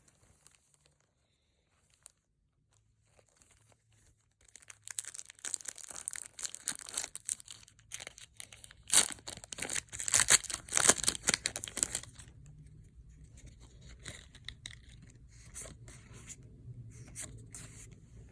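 Foil Pokémon booster pack wrapper being torn open and crinkled, starting after a few seconds of near silence, with the loudest rips about halfway through. Softer rustling of the pack and cards follows.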